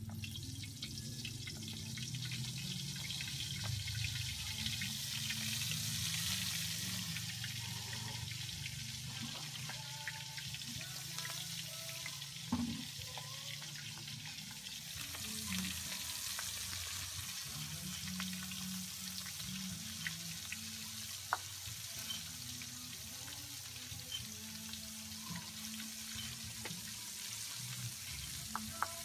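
Flour-dredged milkfish (bangus) intestines frying in hot cooking oil in a wok: a steady sizzle, swelling a few seconds in, with a few sharp clicks.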